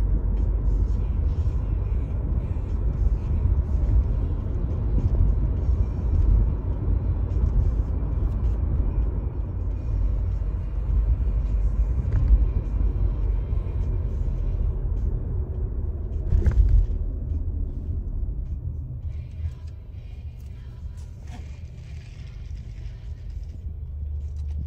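Steady low road and engine rumble inside a moving car's cabin. One sharp bump is heard about two-thirds of the way through, and the rumble drops somewhat in level near the end.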